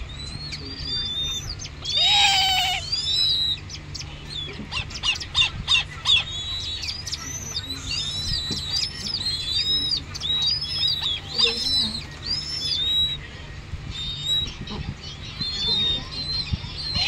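Downy raptor nestlings begging while being hand-fed, giving short high chirps over and over, with a louder, harsher call about two seconds in and a run of clicks around five to six seconds. A steady low electric-fan hum runs underneath.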